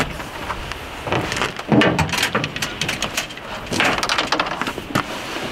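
Fishing rods and reels being set down in a pickup truck bed: irregular knocks and clatters with rustling, strongest about two seconds in and again near four seconds.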